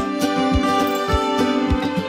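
Background music with a steady beat, a little under two beats a second, under sustained melodic notes.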